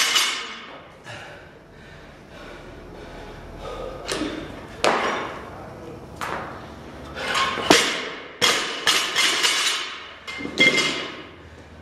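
A loaded barbell with bumper plates clanking as it is cleaned and jerked overhead, then dropped onto a plywood lifting platform. The drop, about eight seconds in, is the loudest hit, followed by a quick run of bounces and plate rattles, with another thud near the end.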